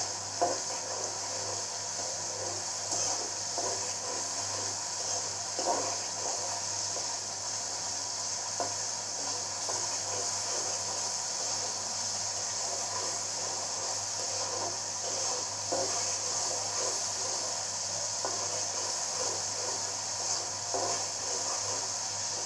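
Onion and spice paste sizzling in oil in a metal kadai while a spatula stirs it, scraping and knocking against the pan now and then, about five times. The masala is being fried down and is nearly done.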